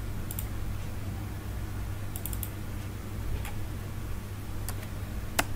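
Computer mouse and keyboard clicks: a few scattered single clicks, a quick run of keystrokes about two seconds in, and the sharpest click near the end, over a steady low hum.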